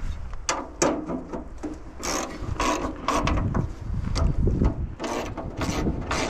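Hand ratchet wrench clicking in short, uneven runs of strokes while loosening bolts on an air compressor.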